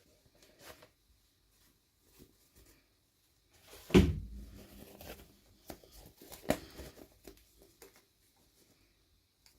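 Packaging being handled and opened by hand: scattered small clicks and rustles, with a louder knock about four seconds in and another about six and a half seconds in.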